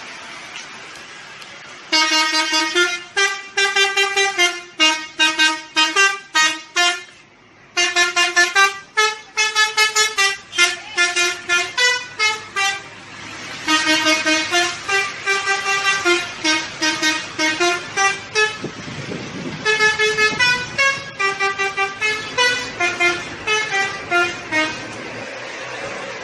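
Bus telolet horn, a multi-tone air horn playing a quick tune of short honked notes, with a short break about seven and a half seconds in.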